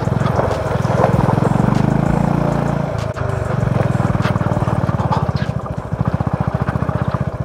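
Motorcycle engine running as the bike rides along, a fast even beat of exhaust pulses that slows and grows more separate near the end.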